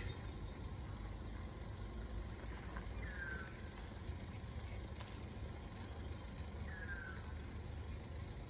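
Steady low outdoor rumble, with two short whistles falling in pitch about three seconds and seven seconds in.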